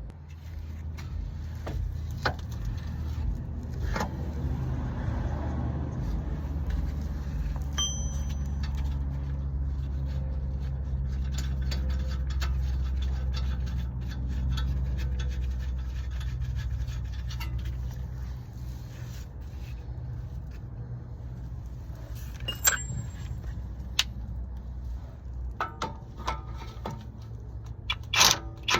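Metal parts and hand tools scraping and clinking during work on a car's CV axle: many scattered sharp clicks over a steady low rumble, with the clinks coming thicker near the end.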